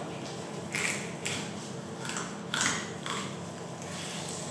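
Fillet knife drawn along a coho salmon's backbone, cutting through the rib bones in about five short scraping strokes.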